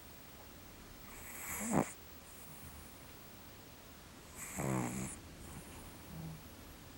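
Domestic cat asleep, breathing with a soft snore: two noisy breaths about three seconds apart, the second with a low rattle, then a faint short one.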